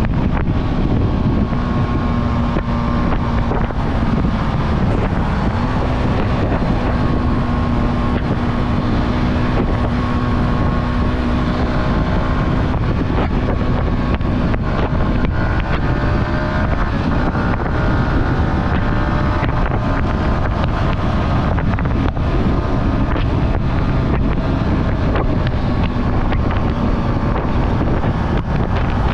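Yamaha R15's single-cylinder engine running at a steady cruising speed on the road, its note holding mostly even with a small pitch change about five seconds in, under heavy wind rush on the microphone.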